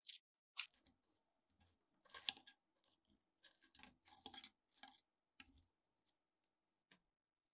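Thin metal pick and gloved fingers scraping and prying crumbling rust and packed debris out of a cavity in a rusted 1928 Thompson submachine gun's steel receiver: faint, irregular scratching and small crunches.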